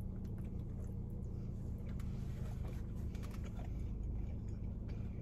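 Pizza being chewed, faint soft mouth clicks over a steady low hum in the car's cabin.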